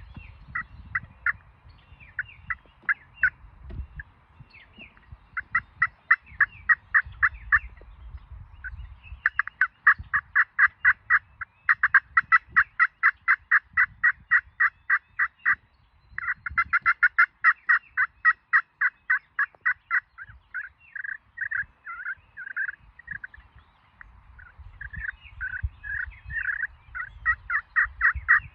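Long runs of turkey yelping, quick evenly spaced notes at about six a second with short breaks between runs, over a low rumble of wind or handling noise. Near the end the notes come more unevenly and vary in pitch.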